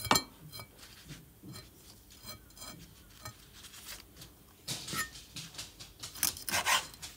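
Kitchen knife cutting small chika smelt on a bamboo cutting board: scattered soft taps and cuts of the blade through the fish onto the wood. There is a sharp knock right at the start, and louder cuts come about five and six and a half seconds in.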